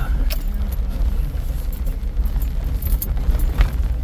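Off-road vehicle crawling a rough trail, heard from inside the cab: a steady low engine and drivetrain rumble with scattered rattles and knocks.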